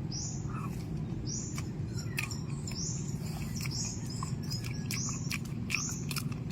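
A small bird chirping over and over, a short high chirp more than once a second, over sharp clicks of someone biting into and chewing a small wild fruit. A steady low rumble runs underneath.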